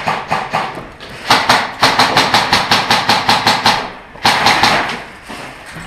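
Airsoft electric rifles firing full-auto bursts, a rapid clatter of about seven shots a second: one burst ends about a second in, a longer one follows for over two seconds, then a short burst about four seconds in.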